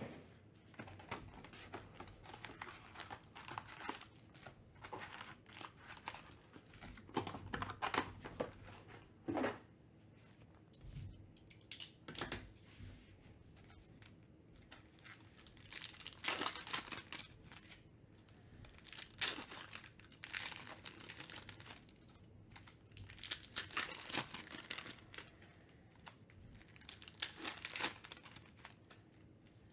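Foil trading-card packs crinkling and tearing as they are handled and ripped open by hand, in irregular bursts with short quiet gaps.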